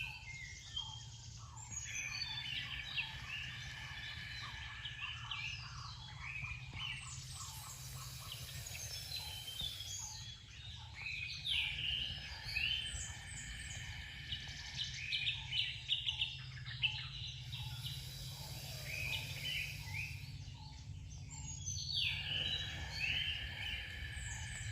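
Several songbirds chirping and singing in many short, repeated calls, pausing briefly a couple of times, over a steady low hum.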